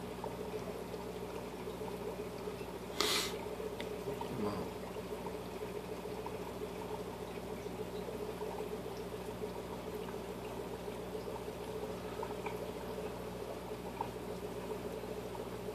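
Aquarium filter running: a steady trickling and bubbling of water over a low hum. There is one brief sharp noise about three seconds in.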